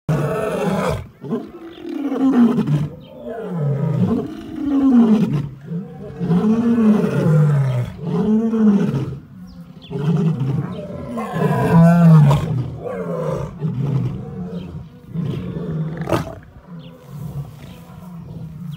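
Lionesses snarling and growling at each other in a fight. A run of long, low growls rises and falls in pitch, one every couple of seconds, and dies down near the end.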